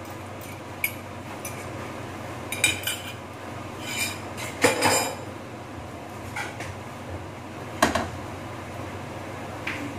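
Metal frying pan and kitchen things clinking and knocking on a gas stove as the pan is handled and moved on the burner. The knocks are scattered, the loudest a short cluster about halfway through and a sharp one near the end, over a steady low hiss.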